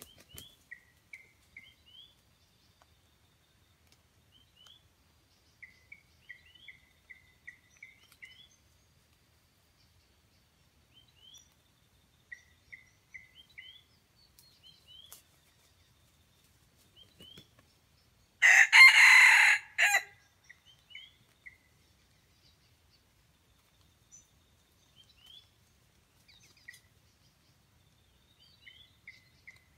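A jungle rooster (red junglefowl) crows once, loud and short, about a second and a half long, roughly two-thirds of the way in. Faint, quick chirps repeat in small runs throughout.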